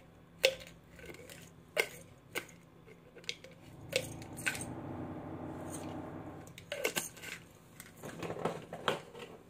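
Hands handling a small hard object at a counter: a series of sharp clicks and taps, with a stretch of steady rustling in the middle and a quick cluster of clicks near the end.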